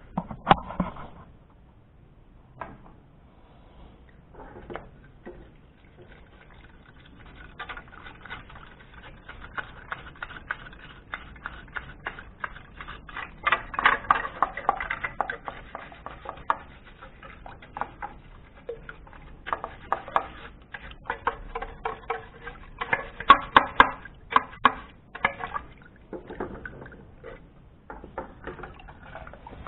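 Stiff plastic brush scrubbing a plastic juicer motor housing in a bucket of water, with water splashing. A few scattered splashes and knocks come first, then quick, rapid scrubbing strokes from several seconds in, at their loudest near the middle and again later on.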